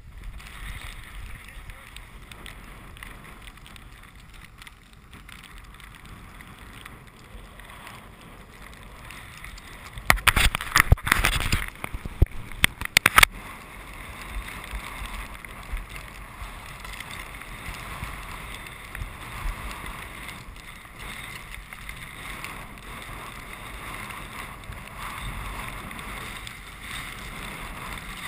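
Skis sliding through powder snow, with wind rushing over a body-mounted action camera's microphone. About ten seconds in comes a burst of loud knocks and scraping lasting about three seconds.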